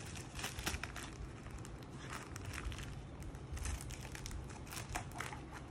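Scissors cutting open a white plastic mailer, with irregular crinkling and rustling of the plastic as it is held and cut.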